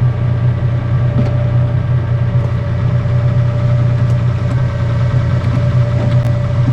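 Steady low mechanical drone with a constant higher hum over it, engine-like, and a few light clicks.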